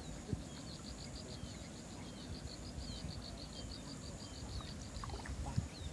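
Small animals calling in the open: an even train of short, high chirps, about five a second, stopping near the end, with a few scattered single high chirps, over a low rumble.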